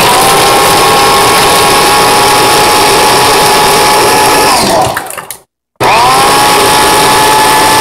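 Countertop blender motor running loud at high speed. About four and a half seconds in it winds down and stops, then it starts up again about a second later, its pitch rising as it spins up.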